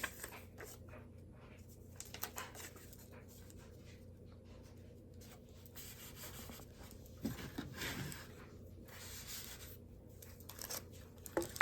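Faint rustling, crinkling and tearing of paper and packaging with scattered small taps, as items are handled and laid into a cardboard box; a louder stretch of rustling about seven to ten seconds in.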